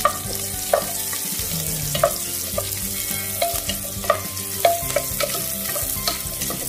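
Chopped onion and garlic sizzling in oil in a metal pot, stirred with a wooden spatula that scrapes and knocks against the pot about every half second to second.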